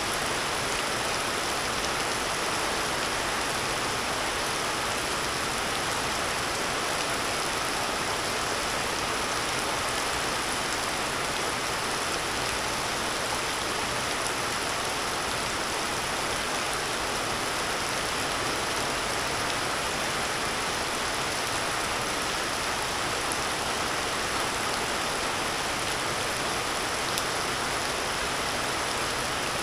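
Heavy rain falling steadily, an even hiss of downpour.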